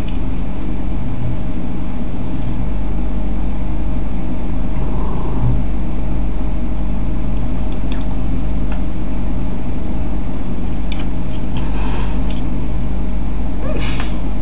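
Cat purring loudly right at the microphone, a steady low rumble, with a few short rustles near the end.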